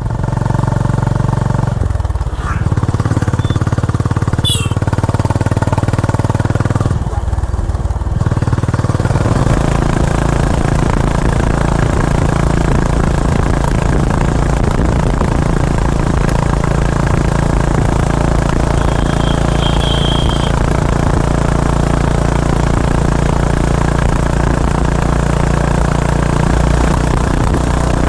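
Honda H'ness CB350's single-cylinder engine running under way, its note briefly breaking off about two and seven seconds in, then carrying on steadily at cruising speed under a steady rush of wind noise.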